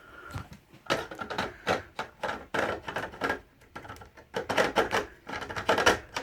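Irregular run of clicks, knocks and rattles from hands handling and fitting plastic fire alarm equipment.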